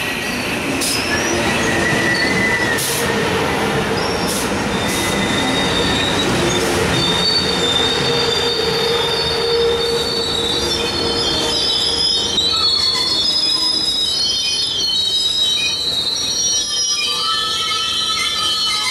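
Amtrak Superliner bilevel passenger cars rolling past at low speed as the train slows for a station stop: a steady rumble of wheels on rail with high, thin squeals from wheels and brakes. The squeals come more and more often in the second half as the train nears a stop.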